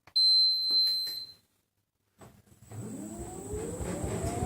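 Hotpoint Ultima S-line tumble dryer's control panel gives one long high beep as the programme is started. About two seconds in, the dryer's drum motor starts up, with a whine rising in pitch as it gets up to speed and the running noise growing louder.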